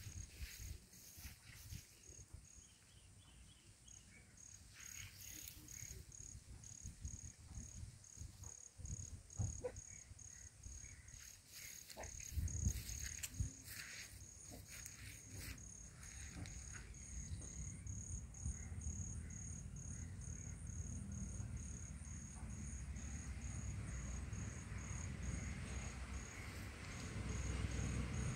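An insect chirping steadily at a high pitch, about two chirps a second, with scattered clicks in the first half and a low rumble building in the second half.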